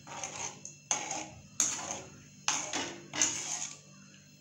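Metal slotted spatula scraping and knocking against a metal kadai as soup is stirred continuously, in about five quick strokes.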